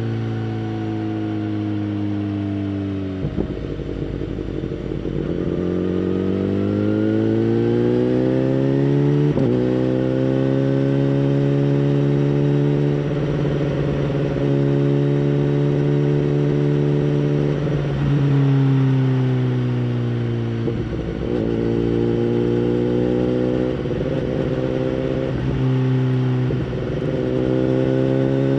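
2011 BMW S1000RR inline-four with a Bodis aftermarket exhaust, running while being ridden. The revs rise and fall steadily, and about half a dozen short breaks in the engine note mark gear changes.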